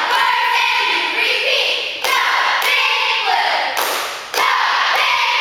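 Cheerleading squad yelling a cheer in unison, broken by several sharp claps and thuds.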